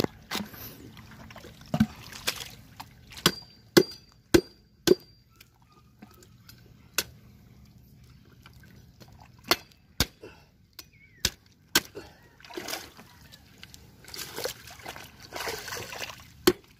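About a dozen sharp, irregular knocks of a blade chopping into a sailfish on a wooden cutting board, with water splashing and sloshing in shallow seawater, a longer splashy stretch near the end.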